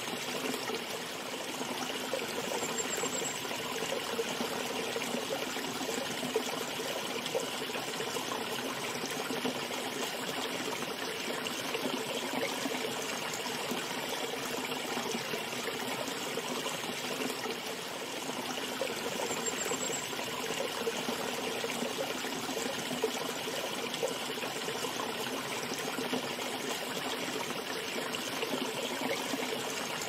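Shallow stream flowing over stones, a steady trickling rush of water.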